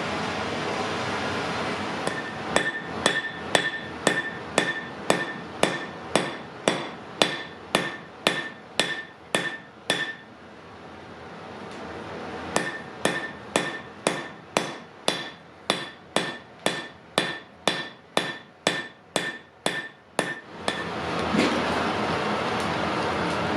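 Blacksmith's hand hammer striking hot iron on an anvil at a steady pace of about two blows a second, each blow with a clear metallic ring. There are two runs of blows with a short pause between them. A steady rushing noise comes before the first run and after the second.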